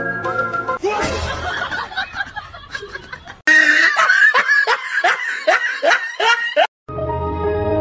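Loud snickering laughter, a quick run of short sounds each falling in pitch, after a cut from background music; music returns near the end.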